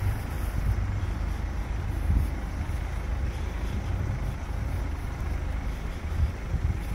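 Congested road traffic: vehicle engines running in a slow queue, a steady low rumble.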